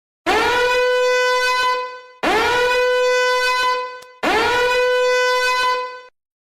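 A horn-like blast sounded three times in a row, each about two seconds long. Each one scoops quickly up to a single steady note and then cuts off.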